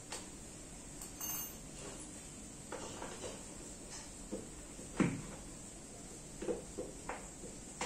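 Scattered light clicks and knocks from handling office-chair parts and metal screws, with one sharper knock about five seconds in.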